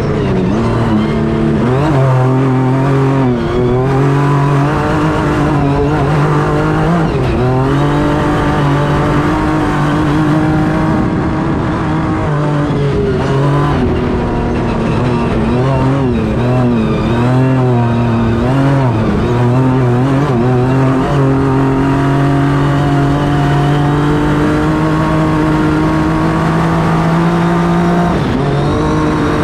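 Honda Ridgeline Baja race truck's twin-turbo V6 heard from inside the cab at high speed on dirt. The engine note rises and falls repeatedly with throttle and gear changes, then holds a long, steadily climbing pull before dropping off near the end.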